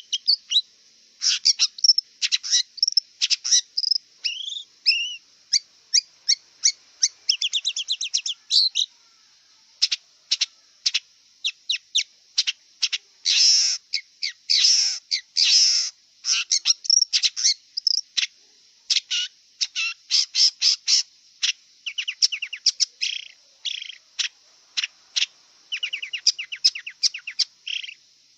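Long-tailed shrike (cendet) singing: a fast, varied run of short chirps, quick trills and a few harsher notes, broken by brief pauses.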